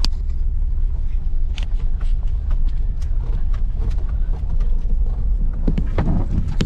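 Vehicle moving along a rough road: a steady low rumble with scattered knocks and crunches from the road surface.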